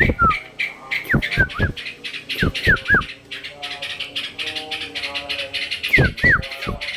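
Trucukan (yellow-vented bulbul) calling with loud, short whistles that sweep downward, in quick clusters about a second in, around two and a half seconds in, and again near the end, over a fast run of clicking chatter. A fainter drawn-out wavering sound comes in the middle.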